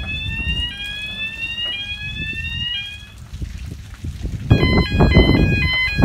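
Electronic warning alarm on a milking shed's top gate and backing gate, set off by its push-button. It sounds a rising whoop that repeats about once a second, and from about 4.5 s switches to a stepping two-tone electronic pattern over a low machinery rumble.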